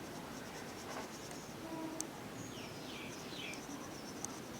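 Faint background: a few quick falling chirps from a bird about halfway through, over a faint, fast, high ticking, with a couple of small clicks.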